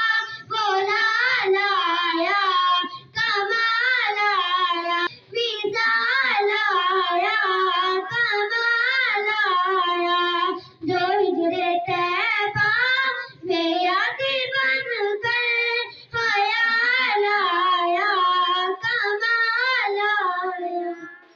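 Young girls singing an Urdu naat (devotional song in praise of the Prophet) without instruments, in long held phrases with short pauses for breath.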